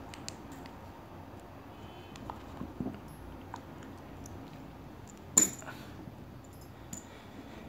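Handling noises of a stainless steel multitool and its leather sheath: a few faint clicks and rustles, and one sharp metallic click about five seconds in.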